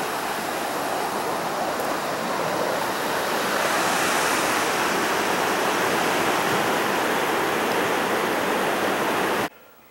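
Rushing river rapids: a steady rush of white water over rocks, which cuts off abruptly near the end.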